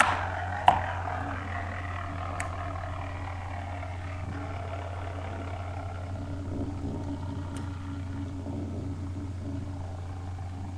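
Lightning L-Drago and Storm Aquario Beyblade spinning tops whirring and scraping against each other in a stadium just after launch, with a few sharp clicks as they strike. The whir slowly drops in pitch as the tops lose speed, over a steady low hum.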